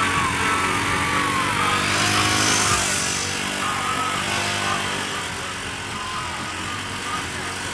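Small vintage tractor engine running steadily at low speed as it pulls a parade float, with a brief hiss about two to three seconds in and voices in the background.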